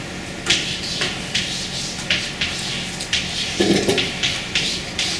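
Scratching and rustling on paper in short, irregular strokes, several a second, as when writing notes. A short low sound comes a little past halfway.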